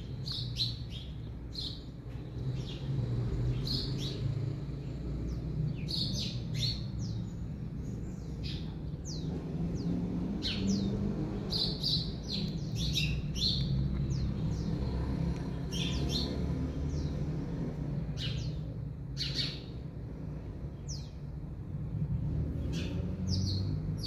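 Small songbirds chirping around the rooftops: many short, high chirps that sweep downward, coming in irregular bursts, over a steady low background rumble.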